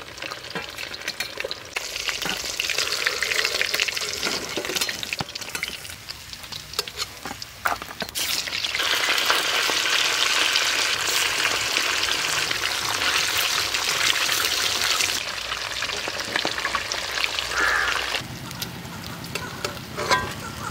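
Fish pieces deep-frying in hot oil in a black kadai: a steady sizzle that grows louder about eight seconds in and dies down near the end, with a few brief knocks.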